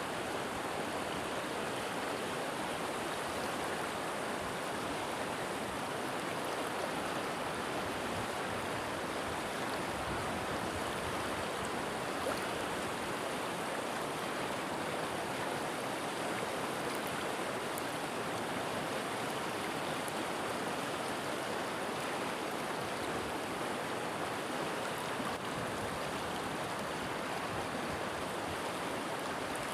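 River water flowing steadily, an even rushing with no breaks or changes.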